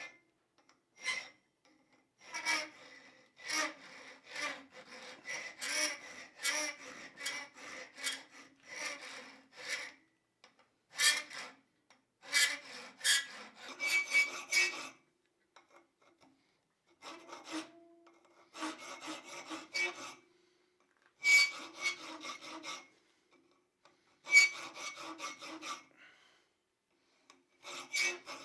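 Triangular file cutting a notch into 3/8-inch round steel bar, its teeth seated in a small saw kerf. The file goes in runs of quick rasping strokes, about two a second, with short pauses between the runs.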